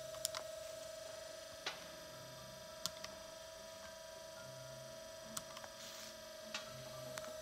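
A steady hum on one even tone, with a few light clicks and taps scattered through it.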